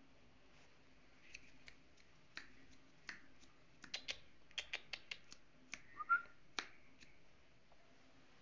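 A small dog's claws clicking on ceramic tile as it shifts and paws about, a couple of dozen irregular faint taps over several seconds. About six seconds in comes one short rising squeak, the loudest sound.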